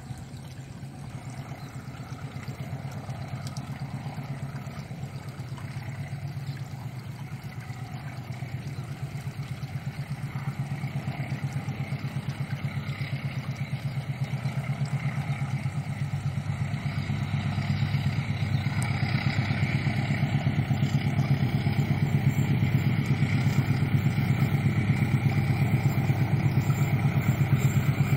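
Diesel locomotive engine running, its low drone growing steadily louder as the train approaches.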